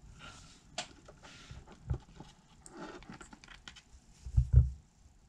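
Handling noise: rustling, light clicks and taps, with a heavier low thump about four seconds in as something is set down or knocked.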